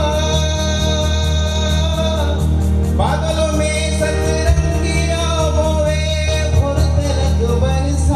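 A man singing a song into a microphone over backing music with a steady beat, holding long notes and sliding up to a higher note about three seconds in.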